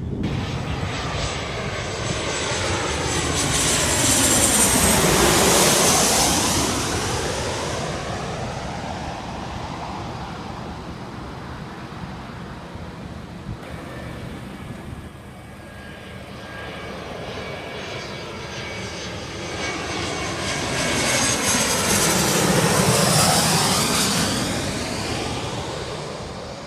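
Jet airliners passing close by one after another. Two flybys swell up and fade, about 17 seconds apart, the engine whine falling in pitch as each goes past.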